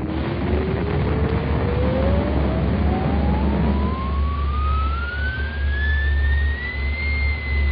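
Cartoon sound effect of a whistle rising steadily in pitch for about seven seconds, then levelling off and starting to dip, for a character shot up into the air from a cannon. It sits over a steady hiss and low hum.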